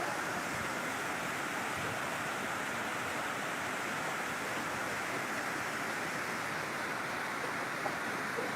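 Waterfall's steady roar: an even rush of falling water that holds the same level throughout.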